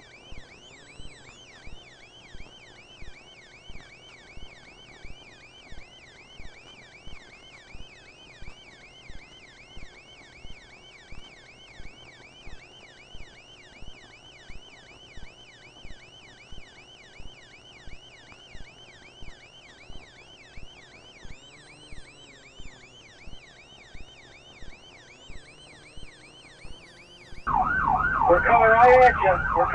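Faint police sirens: a fast warbling yelp with a slower wail over it, and a steady clicking about one and a half times a second. Near the end the sound jumps to a much louder siren wail.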